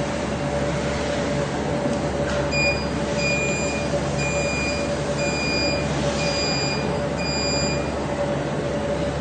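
Steady machinery hum and noise, with an electronic beeper sounding six even, high-pitched beeps about a second apart, starting about two and a half seconds in.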